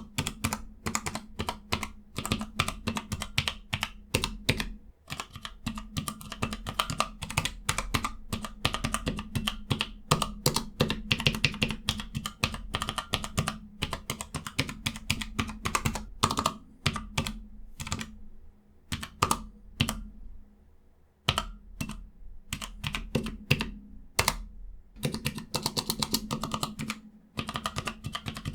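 Keys of a Cherry G84-4700 numpad with Cherry ML switches being typed on in quick runs of clicks, thinning to a few scattered keystrokes about two-thirds of the way through before picking up again.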